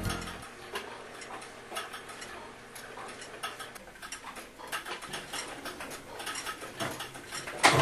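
Lepaute electric pendulum clock ticking steadily as its pendulum swings, with a louder, sharper click near the end.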